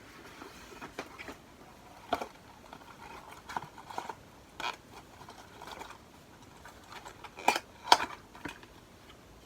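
Handling of cardboard and plastic packaging: scattered light taps, scrapes and rustles, with two sharp clicks in quick succession near the end.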